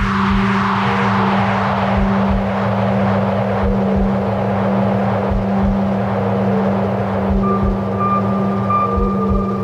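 Ambient electronic soundtrack: a steady low drone with deep irregular pulses under a descending whoosh that fades over the first few seconds. A thin high held tone enters about three-quarters of the way through.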